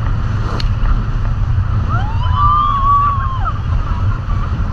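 Wind buffeting the camera's microphone and water rushing and splashing around a towed inflatable banana boat at speed, a loud steady rumble. About two seconds in, a rider lets out a drawn-out yell lasting a second or so, and there is a brief click about half a second in.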